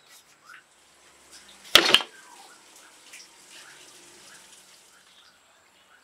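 Heavy stone pestle knocking against a stone mortar: two sharp stone-on-stone knocks in quick succession about two seconds in.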